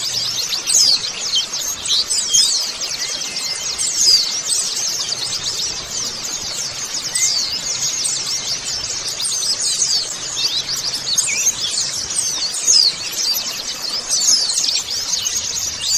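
A flock of white-eyes (pleci, Zosterops) chirping together: many thin, high, quick calls overlapping one another without a break.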